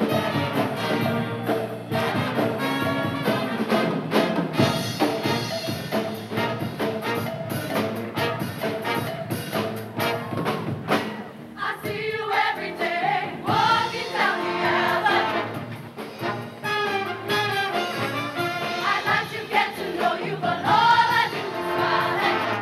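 A mixed show choir sings with instrumental accompaniment during a dance number; the voices stand out more from about halfway through.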